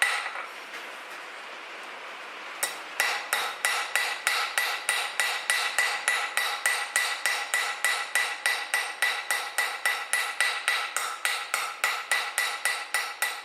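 Cross peen hammer tapping lightly and rapidly on hot steel on an anvil, about four strikes a second with a clear metallic ring after each. The strikes stop for about two seconds at the start, then run on steadily. The light blows are pressing small dents into the surface of a forged leaf to make veins and texture.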